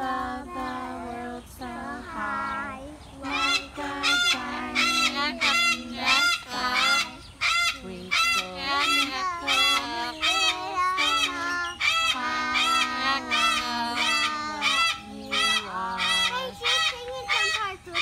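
Amazon parrot singing: from about three seconds in, a long run of loud, bright honking notes about two a second, with lower held sung notes underneath.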